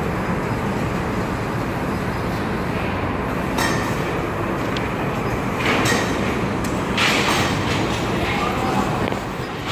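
CNC sheet-steel cutting machine running with a steady noise, with short hissing bursts about three times.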